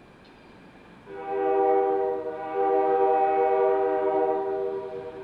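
Diesel locomotive air horn, a GP9, sounding two blasts, the second longer than the first.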